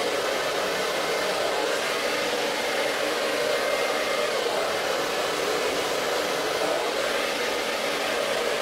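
Handheld hair dryer with a diffuser attachment running steadily on medium speed, blowing on curly hair: an even, unbroken rush of air.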